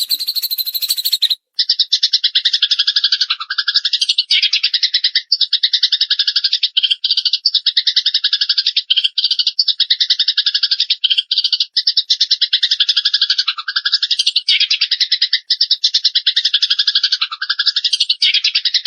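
Small songbird giving a long, very rapid rattling trill in runs with only brief breaks, starting about a second and a half in. It is a recording of caged-bird song, played to train songbirds; just before the trill, a short, higher and sharper burst of calls.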